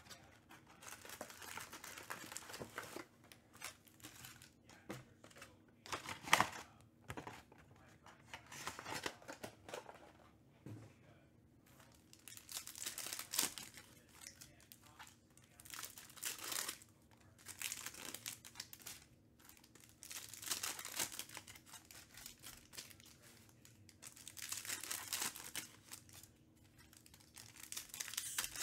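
Foil trading-card packs from a Panini Select basketball hobby box being torn open and crinkled by hand, in short bursts of crackling every few seconds.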